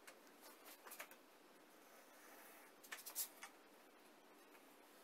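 Faint scratching and clicks of a bare utility-knife blade drawn along the rubber spline of a screen frame, slicing off the excess mosquito-net mesh, in short strokes about a second in and again around three seconds in.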